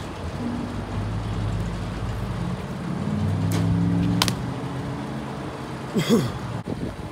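A nearby motor vehicle engine running steadily, its pitch stepping up about three seconds in. Two sharp cracks come a little after three and a half and four seconds in, and a louder short knock comes about six seconds in.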